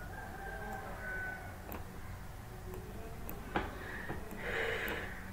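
Room tone with a steady low hum and two sharp clicks, about two seconds apart, typical of computer mouse clicks.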